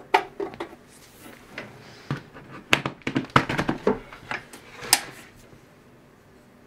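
Irregular clicks and knocks of a power cord being handled and plugged into the power socket of a 3D printer, with the loudest knocks a little after the start and between about three and five seconds in.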